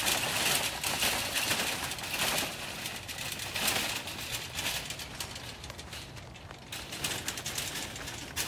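Wire-mesh utility wagon loaded with plastic buckets, rattling and crunching as it is wheeled over a rough dirt path: a dense run of clicks and scraping that eases off in the second half.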